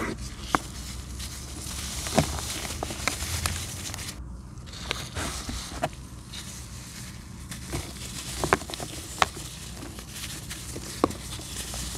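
Dry moulded black sand being crumbled by gloved hands: a gritty, rustling crunch with powder sifting down, broken by scattered sharp cracks as chunks snap apart.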